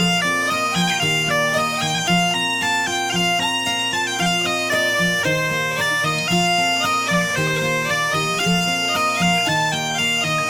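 Bagpipe music: a quick melody of short stepping notes played over a continuous steady drone.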